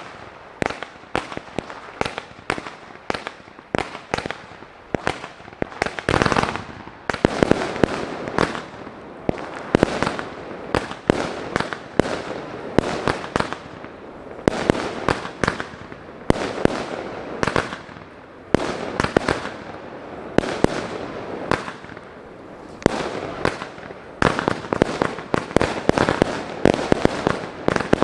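Aerial fireworks display: a continuous series of shell bursts and bangs, several a second, with crackle in between, thickening into denser volleys in places.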